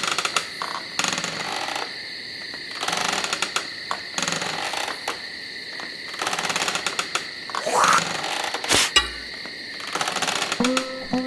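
Sci-fi sound effects: stuttering electronic buzzing and crackling over two steady high tones, with a rising whine about eight seconds in and a sharp crack just after. Short pitched notes begin near the end.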